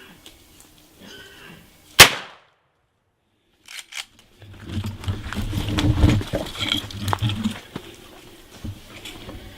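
A single rifle shot about two seconds in, sharp and by far the loudest sound, fired at a hog. A few clicks and a few seconds of rough, rustling noise follow.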